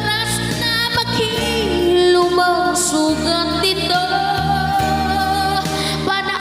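Music: a female singer holding long, sliding notes over the instrumental backing of a slow Tagalog pop ballad.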